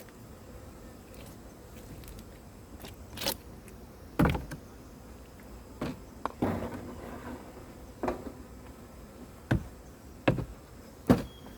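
Irregular knocks and scrapes, about eight sharp ones spread unevenly, over a faint steady background.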